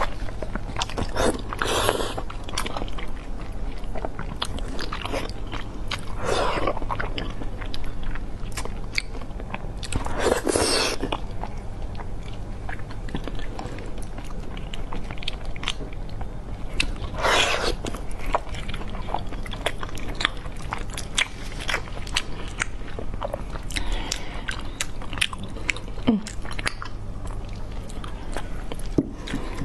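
Close-miked chewing and wet mouth sounds of someone eating braised, gelatinous meat: a steady run of small smacks and clicks, with a few louder, longer mouth noises of about a second each.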